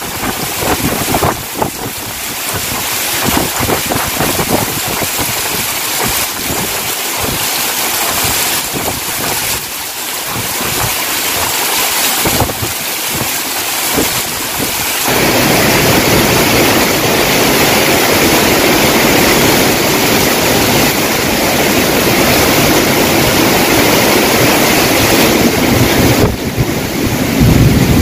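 Heavy tropical downpour in strong, gusting wind, with wind buffeting the microphone. The rain and wind grow louder and fuller about halfway through.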